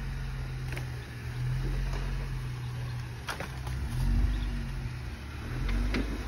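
Jeep Wrangler Rubicon engine running at low crawling speed, its pitch rising and falling as it is throttled over a rock ledge, loudest about four and six seconds in. A few sharp knocks sound over it.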